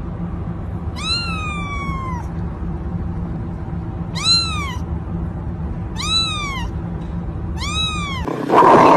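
A domestic cat meows four times, each call rising then falling in pitch; the first is the longest, at about a second. A steady low hum runs underneath, and a loud, rough noise cuts in near the end.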